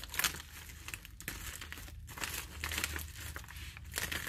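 Clear plastic wrapping around a rolled rug crinkling in irregular crackles as it is slit open with a utility knife.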